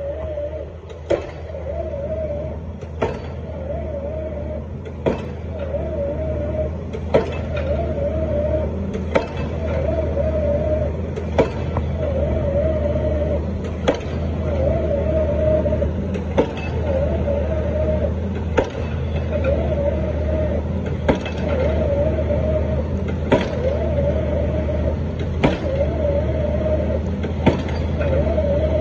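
A pile driver's hammer striking a pile in a regular rhythm, one sharp blow about every two seconds, over the steady drone of the rig's running engine.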